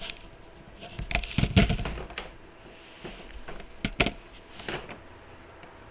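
Small clicks, taps and knocks of electronic components and hand tools being handled on a workbench, the loudest cluster about a second and a half in and a sharp click about four seconds in.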